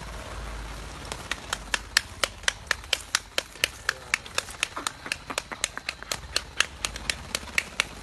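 A quick, even run of sharp clicks, about four a second, starting about a second in over a low rumble.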